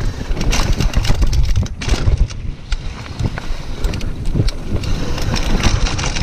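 Wind buffeting the microphone as a mountain bike runs fast down a dirt and gravel trail, with tyres crunching over the loose surface and many quick clicks and rattles from the bike.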